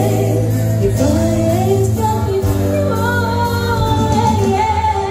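A woman singing a pop ballad into a microphone, amplified through PA speakers, over acoustic guitar accompaniment with steady low bass notes.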